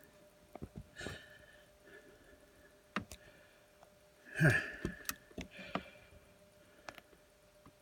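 Scattered clicks and soft knocks of a phone being handled and shifted on a car's dashboard, in a quiet cabin. About four and a half seconds in there is a short low vocal sound with a falling pitch.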